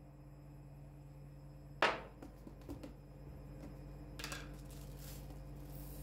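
Kitchen handling of a plastic storage jar of red lentils: a sharp knock about two seconds in, a few light clicks, and a short rattle. Near the end the dry lentils start pouring out of the jar with a soft hiss.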